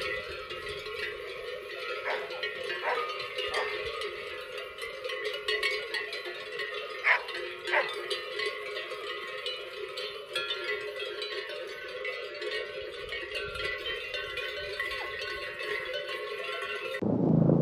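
Cowbells clanking and ringing continuously, with several louder single clanks standing out. Near the end the sound cuts off abruptly into a lower animal sound.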